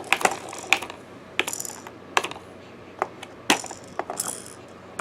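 Irregular plastic clicks, knocks and short rattles from the Fisher-Price Learn With Puppy Walker's buttons and moving parts being handled.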